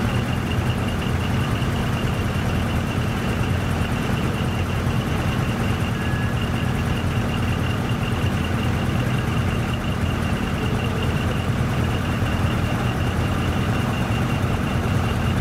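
Heavy truck's diesel engine idling steadily, with a faint steady high-pitched whine over it.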